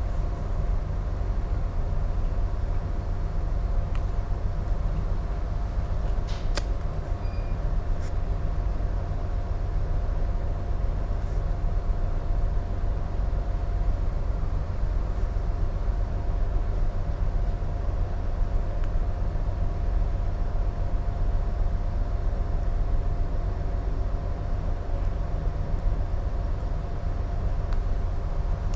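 Steady low rumble on a container ship's bridge under way, with a constant mid-pitched hum throughout and a few faint clicks.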